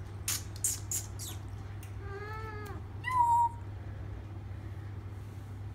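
Siamese kitten giving two short, soft meows, about two and three seconds in, after a few short clicks near the start. A low steady hum runs underneath.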